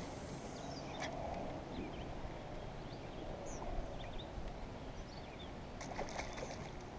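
Quiet open-air lake ambience: a steady low background hiss with scattered short bird chirps and a couple of light clicks near the start.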